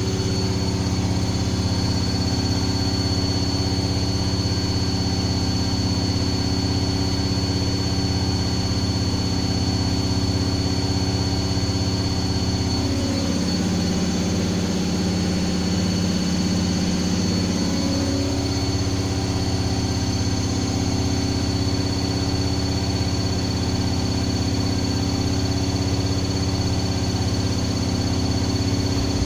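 Washing machine running its spin cycle: a steady motor hum and whir, with a stronger, deeper hum for a few seconds around the middle.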